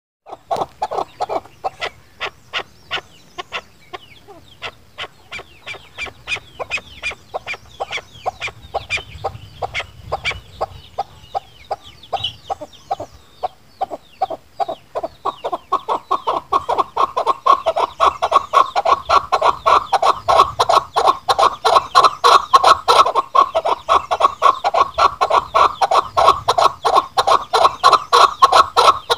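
Chukar partridge calling: a long rhythmic run of short clucking 'chuk' notes, a few a second, which grows louder and fuller about halfway through.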